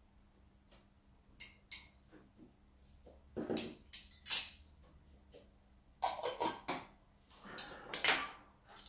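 Metal spoons and a fork clinking and scraping against a ceramic bowl and small saucer as chili sauce is spooned out and cutlery is set down. There are several separate clinks, the loudest about four seconds in.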